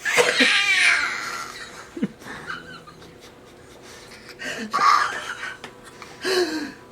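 A baby's raspy, wheezing squeal-laughs that sound like a dinosaur's screech: a long loud one at the start, another about halfway through, and a short one near the end.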